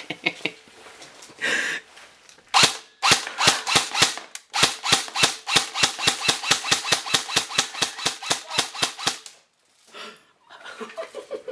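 JG HK416 airsoft electric rifle firing a rapid string of semi-automatic shots, a few spaced ones first, then about six a second for several seconds, stopping suddenly about nine seconds in.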